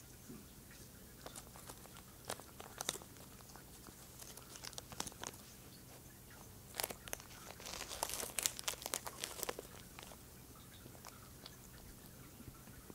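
Scottish fold cat crunching and chewing a treat held close to it, a string of small crisp crunches that come thickest and loudest about eight to nine and a half seconds in and then die away.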